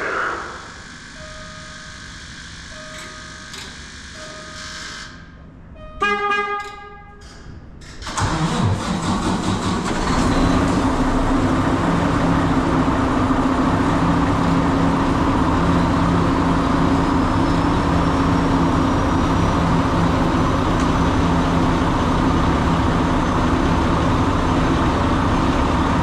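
Air-brake truck's engine starting about 8 seconds in, then idling steadily while it builds air pressure. Before the start there are a few short repeated beeps and a brief horn-like tone about 6 seconds in.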